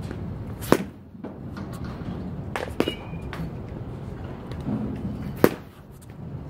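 Louisville Slugger XXL slowpitch softball bat striking mush balls: two sharp hits, about five seconds apart, with fainter clicks between them.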